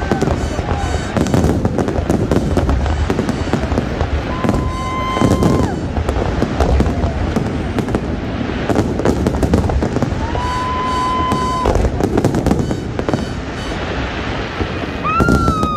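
Fireworks display going off nonstop: a dense run of bangs and crackling, with a few held whistle-like tones over it and a falling whistle near the end.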